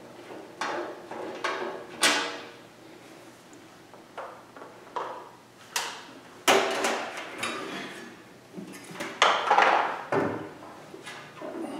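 Irregular clunks and knocks, about a dozen, some ringing briefly, as a Comfort Zone electric garage heater's casing is worked onto its ceiling mounting bracket. The loudest knocks come about two seconds in, halfway through and near the end.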